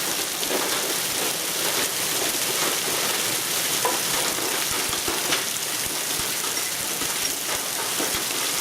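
Heavy rain and hail falling in a dense, steady patter on the ground and surfaces, with scattered sharper ticks of individual stones striking.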